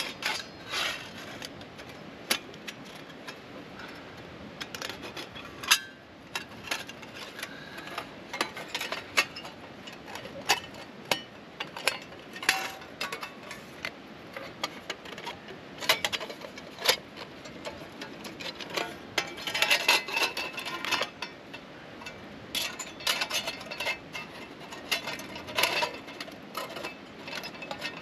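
Small flat-pack metal camping wood stove being assembled by hand: its thin panels and grate clink, tap and scrape as they are slotted together, in a run of irregular sharp clicks, some in quick clusters.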